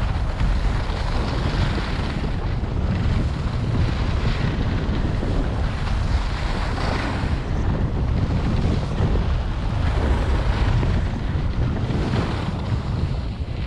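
Wind buffeting the microphone of a camera carried downhill on skis, with the hiss and scrape of skis sliding over packed snow swelling and fading every second or two.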